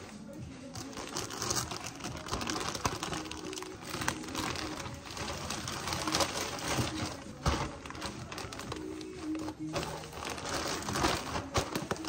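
Plastic packaging crinkling and rustling as hands handle a black poly mailer bag and clear plastic garment bags, with frequent sharp crackles.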